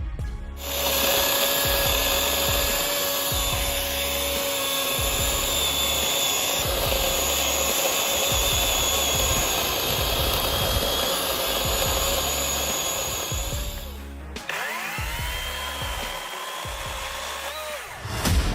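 Greenworks Pro 80V cordless electric chainsaw running with a steady high whine that stops about 14 seconds in. It then spins up again with a rising whine, runs briefly and winds down near the end.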